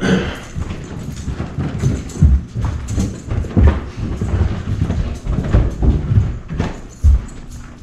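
Footsteps going down a staircase: a run of heavy, uneven footfalls, roughly two a second.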